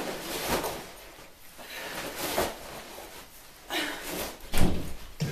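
Pink fitness sandbag swung two-handed, its fabric and filler swishing and thudding with each swing: several irregular strokes, the loudest one near the end.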